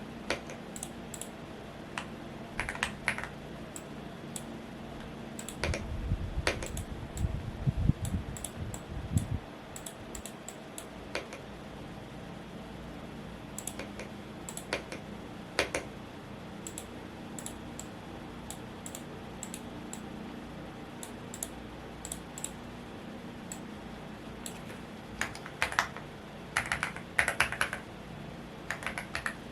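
Typing in short bursts on a Womier S-K71 mechanical keyboard, with sharp key clicks, over a steady fan noise. A low rumble comes about six to nine seconds in.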